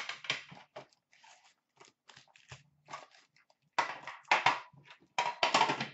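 Metal card tin opened with a sharp clack, then crinkling and rustling of foil hockey-card pack wrappers as packs and cards are handled and torn open. The crinkles are loudest about four seconds in and again near the end.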